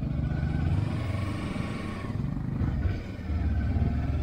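Motorcycle engine running with a low rumble, growing louder twice: for the first few seconds, then again near the end after a brief dip.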